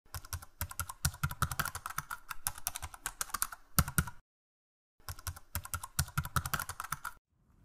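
Rapid computer-keyboard typing, many keystrokes in quick succession. It comes in two runs, broken by a pause of about a second just past the middle.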